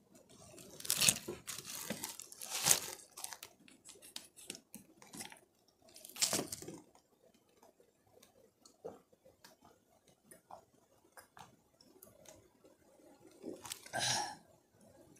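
A person handling a water bottle and drinking from it: a few louder rustling scrapes of handling, small clicks and swallowing sounds, then a short voiced breath out near the end.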